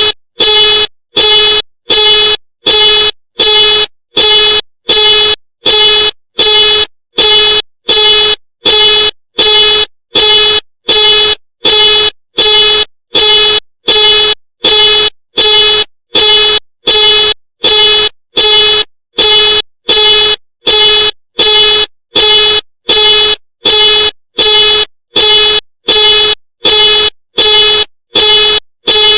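Ford car alarm sounding the vehicle's horn in a steady string of short, identical honks, a little over one a second, with brief silences between them.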